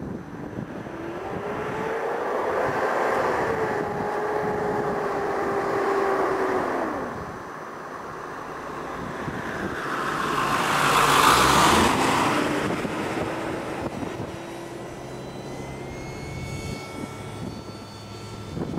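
Radio-controlled model jet flying past: a steady motor whine that drops sharply in pitch as the plane passes about seven seconds in, then climbs again. The sound is loudest, with a rushing swell, around eleven seconds in.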